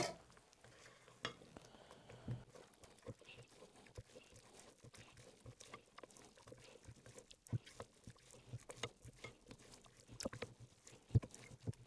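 Silicone spatula stirring sticky yeast dough in a glass mixing bowl: faint, irregular wet squelches and soft taps against the glass, a little busier near the end.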